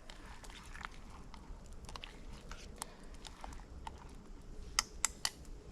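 Wood campfire crackling faintly, with scattered small pops and a few sharper snaps about five seconds in.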